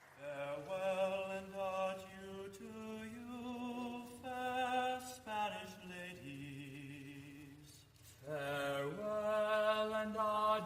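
Sung chant of long held notes, each step changing pitch every second or so, with a short break about eight seconds in.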